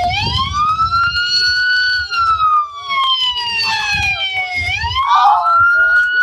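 Police siren wailing, its pitch rising for about two seconds, falling slowly for nearly three, then rising again near the end. Low rumble and scuffing from the body-worn camera run underneath, heaviest at the start.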